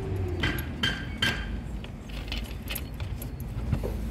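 Light metallic clinks and jangling: three sharp strikes with a short ring in the first second and a half, then fainter clinks, over a low steady rumble.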